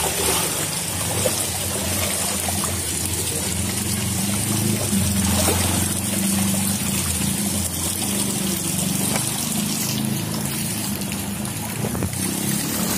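Floodwater rushing and swirling steadily around houses and a yard, a continuous rush of moving water.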